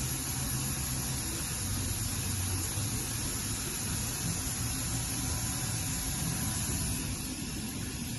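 Steady running noise of a Hurco VMX42U CNC vertical machining center: a low hum under an even hiss, the hum shifting slightly in pitch about two seconds in.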